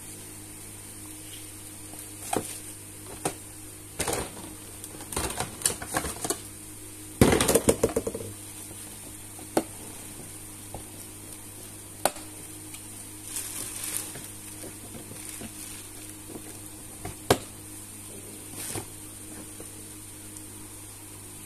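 Hard plastic parts of a basket rack knocking and clicking as they are handled and fitted together, in scattered single knocks, with a loud rattling clatter about seven seconds in.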